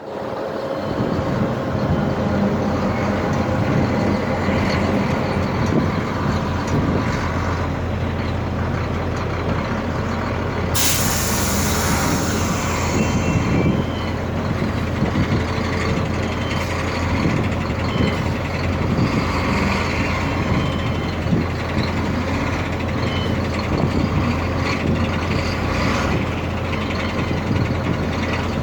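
Heavy truck engine running steadily, with a sudden loud hiss of released air from the truck's air brakes about eleven seconds in, lasting about two seconds.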